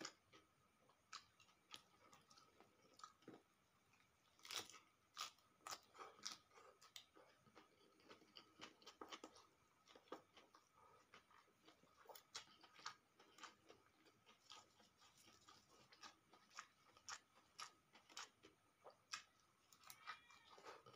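A person chewing a mouthful of rice, omelette and raw vegetables eaten by hand, heard close and faint. It comes as many small crunches and mouth clicks, a few a second.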